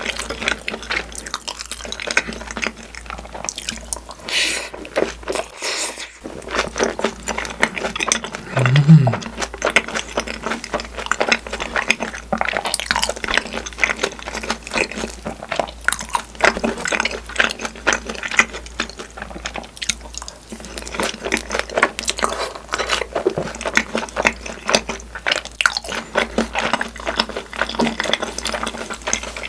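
Close-miked wet chewing and mouth sounds of someone eating takoyaki (octopus balls): dense soft smacking and squishing clicks throughout, with a brief low sound about nine seconds in, the loudest moment.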